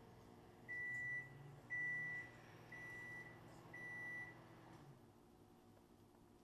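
Four electronic beeps, evenly spaced about a second apart, each about half a second long at one steady pitch, with a faint low hum beneath them.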